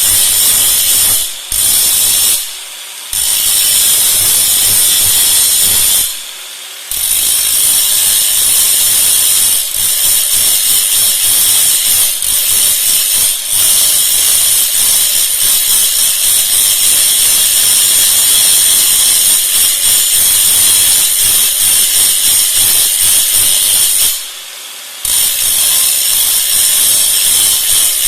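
A power tool working metal, running steadily with a few short pauses.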